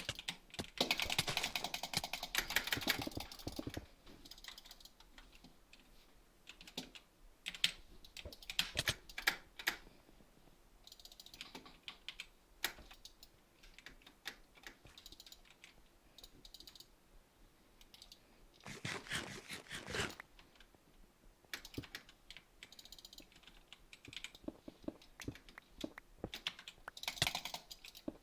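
Typing on a computer keyboard: irregular runs of key clicks, with dense bursts of fast typing about a second in, about two-thirds of the way through, and near the end, and scattered single clicks between them.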